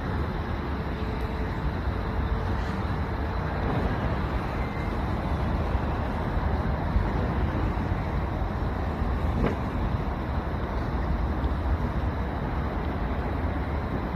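Steady low rumble and rushing noise of a moving boat on a river, its motor running with water and wind noise.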